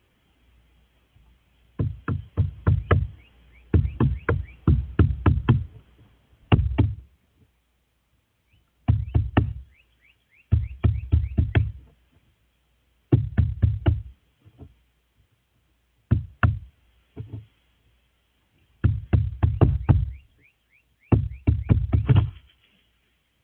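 A crow pecking at seed on a wooden deck railing: its beak strikes the rail in bursts of quick, hard knocks, with pauses of a second or two between bursts.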